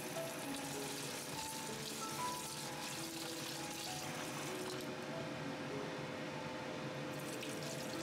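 Light background music with short melody notes, over tap water running into a pan of brown rice as the rice is rinsed.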